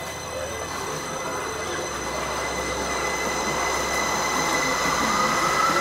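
Electric express train pulling out of an underground station platform, its running noise growing steadily louder. Its motor whine rises in pitch toward the end as it picks up speed.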